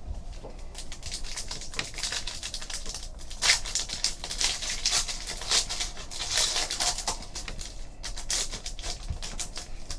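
Trading cards and pack wrappers being handled: dense crinkling and quick irregular clicks as a basketball card pack is opened and its cards are flipped through.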